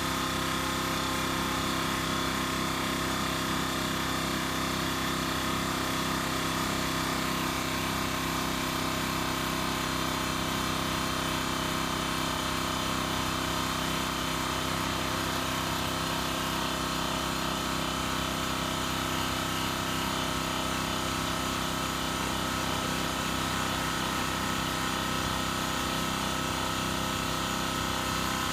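Makita AC4000 portable air compressor running steadily, its motor and pump giving an even, unchanging hum.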